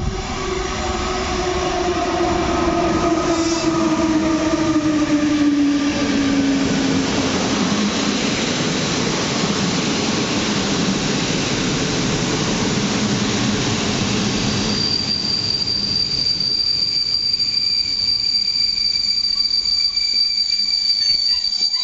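PKP Intercity passenger train hauled by an EU160 electric locomotive pulling into the platform. In the first seven seconds or so the locomotive gives a whine that falls in pitch, then the carriages pass with a steady rolling rumble. About two-thirds of the way in, a thin high squeal from the wheels and brakes sets in and holds as the train slows.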